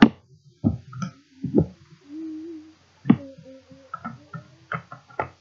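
Sharp plastic clicks and knocks, about seven in a few seconds, from parts being fitted and taken off a Nerf Modulus ECS-10 blaster, with a short hum in the middle.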